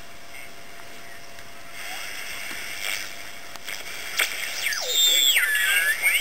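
Three-transistor HF receiver's audio as its tuning knob is turned: band hiss with a faint steady whistle, then, from about four seconds in, louder squeals and sliding, garbled voice tones as it tunes across an amateur voice station.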